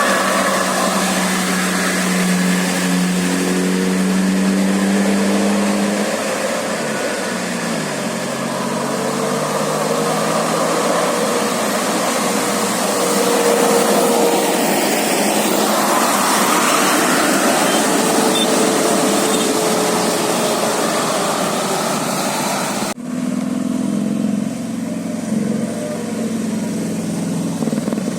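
Bus engine running under loud road and wind noise, with an engine note falling in pitch about a quarter of the way through. Near the end the sound changes abruptly to a different, lower engine sound.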